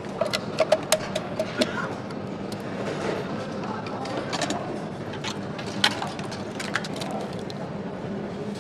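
Assembly-line ambience: a steady machinery hum with sharp clicks and clacks of metal and plastic parts being handled and fitted to a motorcycle frame. The clicks come in a quick run in the first two seconds, then a few single ones later.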